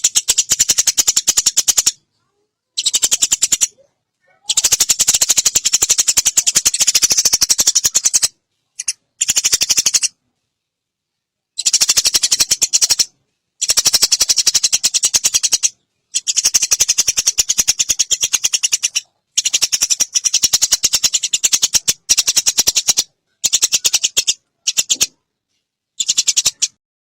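Eurasian tree sparrow's long rattling chatter (the 'recetan' call): very rapid, even clicking notes in repeated bursts of one to four seconds, broken by short pauses.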